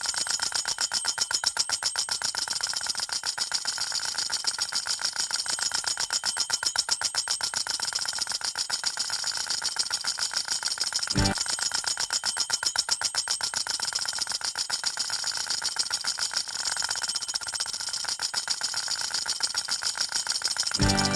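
A fast, steady mechanical rattle of many strikes a second with a ringing tone to it, laid on as a sound effect. There is one sharp click about eleven seconds in.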